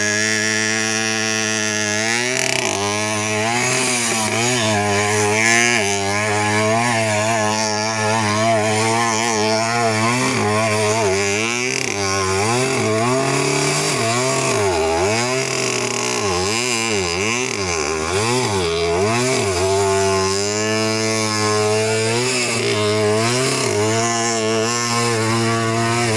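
Motorcycle engine held steady for about two seconds, then revved up and down over and over, roughly once a second, as the rider spins the rear wheel in loose dirt.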